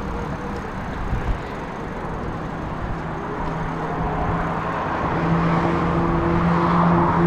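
Steady road and traffic noise heard while riding, with a rush of wind on the microphone. A steady low hum comes in about halfway and grows louder near the end.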